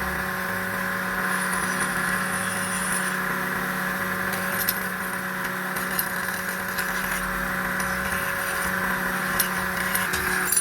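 A workshop machine running steadily with an even hum, with a few light clicks.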